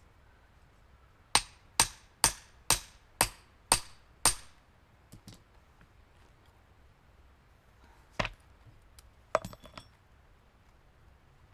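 A metal splitting wedge being struck to split firewood: seven sharp blows in quick succession, about two a second, then a single blow a few seconds later, followed by a few light metallic clinks.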